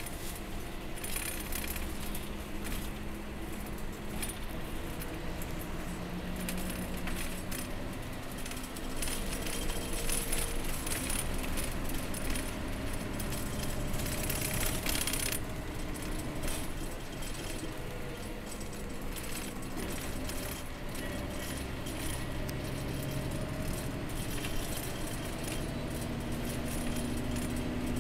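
Express coach cruising on the expressway, heard from inside the cabin: steady engine and road noise whose engine note drifts slowly up and down, with a busy patter of small rattles and jingles from loose fittings in the cabin. The road hiss grows brighter for several seconds in the middle.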